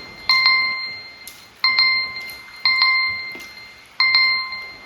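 A timer chime dinging four times, about once every 1.2 seconds, each ding a clear bell-like tone that rings out and fades: the countdown of a timed eating challenge.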